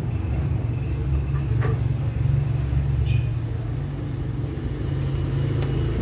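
A steady low rumble, with a few faint knocks and one short high-pitched sound about halfway through.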